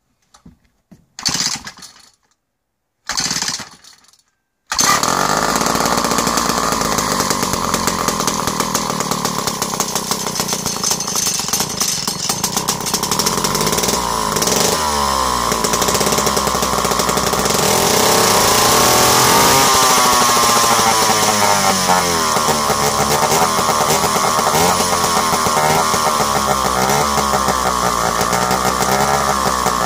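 Vintage Montgomery Ward WD-76 two-stroke chainsaw: two short starter-pull sounds, then the engine catches about four and a half seconds in and runs loudly, its pitch rising and falling a few times as the throttle is worked. The saw's carburettor wants adjusting for cold weather.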